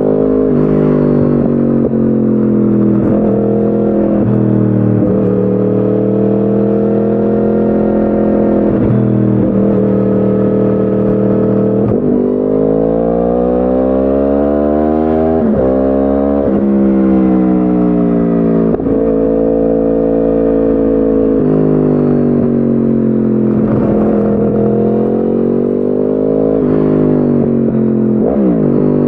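2010 Yamaha R1 crossplane inline-four through a decat Akrapovic exhaust, heard onboard under way. The engine note climbs and falls again and again as the throttle is worked, with brief dips in between and one long climb about halfway through.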